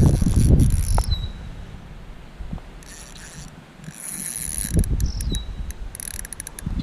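Fishing reel being cranked in short bursts, its gears whirring and clicking as a hooked fish is reeled in on a bent rod. A low rumble sounds in the first second.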